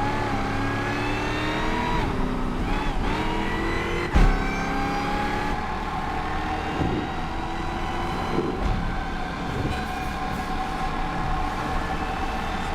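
Supercharged car accelerating hard through the gears, its whine and engine note rising in pitch in each gear and dropping back at shifts about two and four seconds in. After the second shift it climbs more slowly and then holds a steady high-pitched whine.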